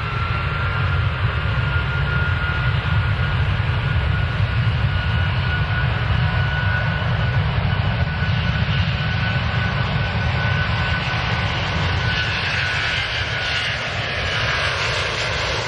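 Airplane engines at takeoff power heard from inside the cockpit. A steady low rumble and rushing noise run throughout, with a thin high whine that slowly rises in pitch and fades out about two-thirds of the way through.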